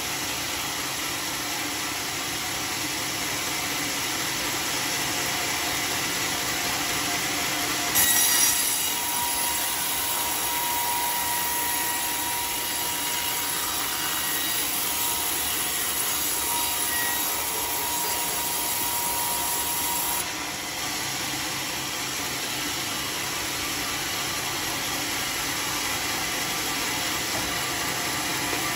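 Homemade band sawmill running steadily, its blade cutting through a teak beam from about eight seconds in to about twenty seconds in with a high hiss and a thin steady whine over the machine's running noise.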